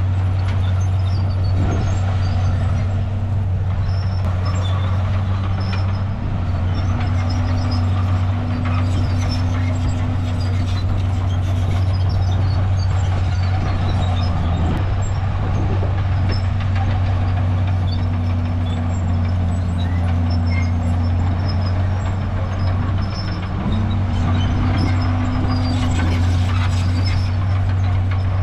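Komatsu D51PX bulldozer's diesel engine running steadily and loudly under load, its pitch shifting a few times as it works. The level dips briefly about six seconds in and again near 23 seconds in.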